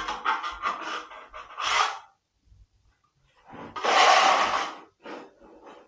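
A plastering trowel scraping wet plaster onto a wall in a run of short strokes, with one longer, louder stroke about four seconds in.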